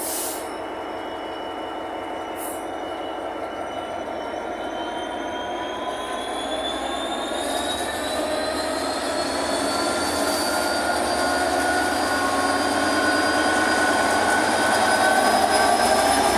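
Class 66 diesel-electric locomotive's two-stroke EMD engine pulling away close by, its engine note and turbocharger whine rising steadily in pitch and loudness as it accelerates. Two short hisses sound near the start.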